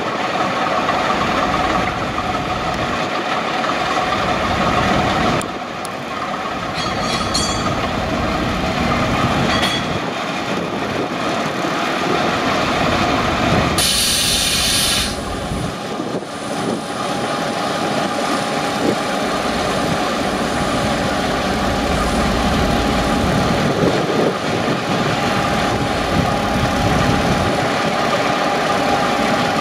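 DB Class V 65 diesel-hydraulic locomotive's engine running as it hauls coaches slowly along the track, with wheel and rail noise under it. A brief hiss comes about halfway through, and a steady tone is held through the second half.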